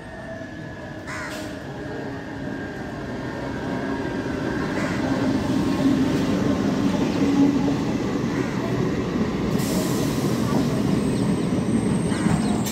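MEMU electric local train running through a station: the rumble of wheels on rail grows louder over the first six seconds as it approaches, then holds steady as the coaches rush past.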